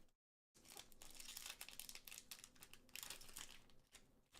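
Foil wrapper of a trading card booster pack crinkling and tearing as the pack is opened: a quiet, dense crackling that starts about half a second in.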